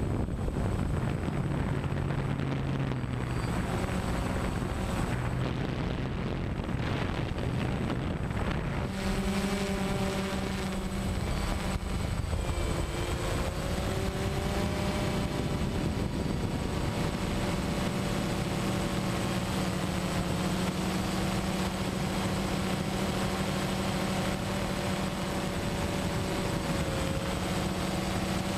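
DJI Phantom quadcopter's motors and propellers running in flight, a steady whirring hum picked up by the camera mounted on the drone. About a third of the way through the hum steps up in pitch and stays there, wavering slightly as the drone manoeuvres.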